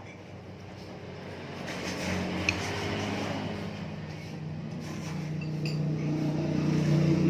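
A motor vehicle engine running nearby, its hum growing louder toward the end, with one short click about two and a half seconds in.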